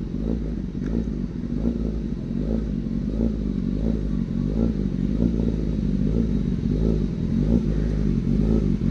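Kawasaki Ninja ZX-10R's inline-four engine running steadily at idle.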